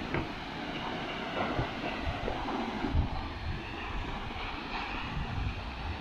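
Wind buffeting the microphone: irregular low rumbling thumps over a steady outdoor rushing noise, with the strongest gust about three seconds in.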